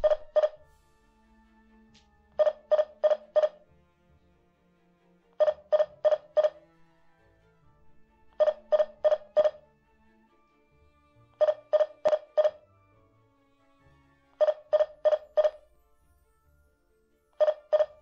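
Blitzwolf BW-IS6 alarm hub beeping in quick groups of four, a group about every three seconds. This is the entry-delay countdown after the motion sensor has tripped, warning that the system must be disarmed before the siren sounds.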